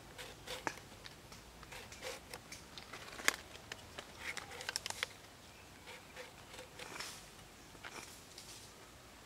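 Small red onion being peeled and cut by hand against an upright fixed blade: irregular small crisp clicks and crunches, the sharpest about three seconds in.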